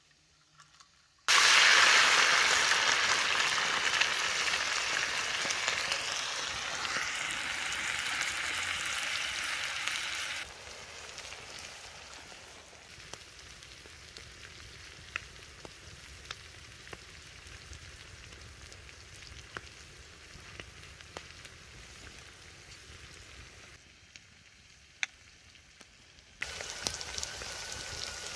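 Diced lamb liver, heart and lung hitting a hot saj griddle and sizzling loudly, then frying more quietly with occasional sharp clicks, and sizzling louder again near the end.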